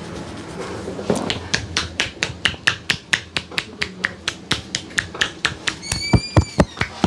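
A barber's hands striking rapidly and rhythmically in a percussive massage, about five slaps a second, starting about a second in and getting sharper and louder towards the end. A brief high chirp sounds about six seconds in.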